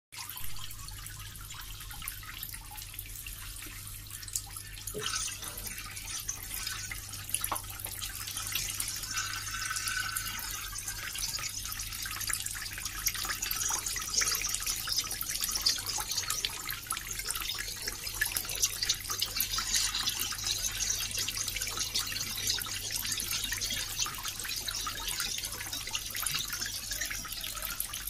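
Water running and splashing steadily, with many small drips and drops ticking through it; the flow grows fuller about five seconds in.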